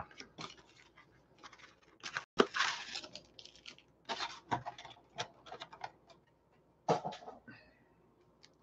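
Cardboard trading-card blaster box being torn open and its wrapped packs pulled out: scattered crinkles, rips and clicks of cardboard and plastic wrap, in short bursts.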